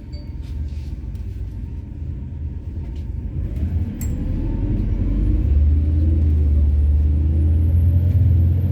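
Methane-fuelled MAZ-103 city bus engine running with a low rumble that grows louder and heavier about halfway through. There is a single sharp click about four seconds in.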